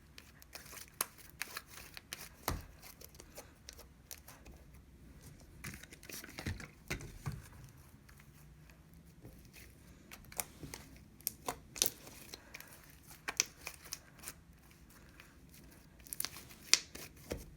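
Sticky, still gluey slime being kneaded and pulled apart by hand, making tacky tearing and crackling sounds, with scattered knocks as it hits the table and one heavier thump about two and a half seconds in.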